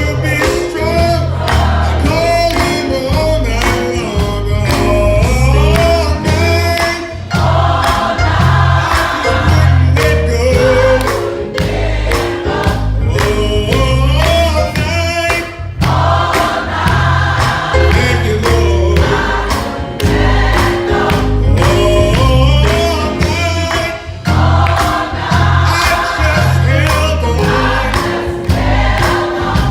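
A choir singing a gospel song, with a steady bass accompaniment underneath.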